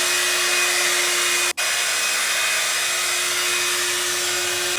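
Philips 7000 series hot air brush running steadily: airflow hiss over a steady motor hum. It cuts out for an instant about one and a half seconds in, then carries on.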